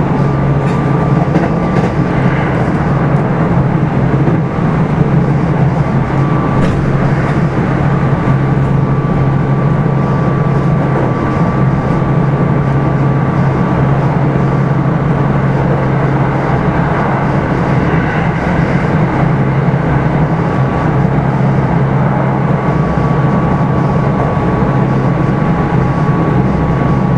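Onboard running sound of a Kintetsu 5211-series electric train, from motor car Mo 5261, at steady speed: a continuous low rumble of wheels on rail and running gear, with a faint whine that fades in and out and occasional clicks.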